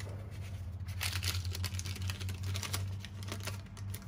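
A thin plastic sheet crinkling as it is handled and wrapped over the end of a motorcycle fork's chrome inner tube, used as a protective sleeve so the new oil seal can slide on without catching on the sharp edges. The crinkling is light at first and turns into a dense run of crackles from about a second in.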